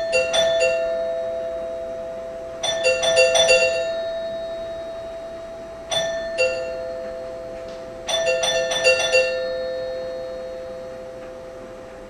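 A two-tone chime doorbell rung four times, its two tone bars ringing on long after each press. Some presses give a quick flurry of strikes; about six seconds in comes a single high-then-low ding-dong.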